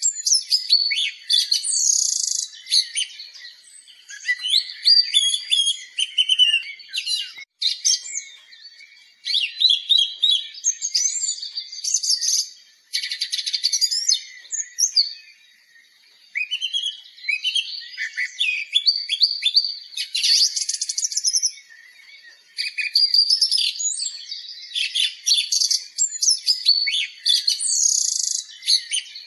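Songbirds singing: a dense run of quick chirps, whistles and trills, with short pauses now and then.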